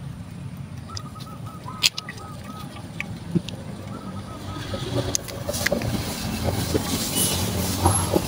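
Low engine rumble of a passing vehicle that grows louder near the end, with a quick run of high chirps about a second in. Over it come scattered sharp clicks and scraping from hand tools and fingers working a ficus bonsai's root ball loose from its pot, busier in the second half.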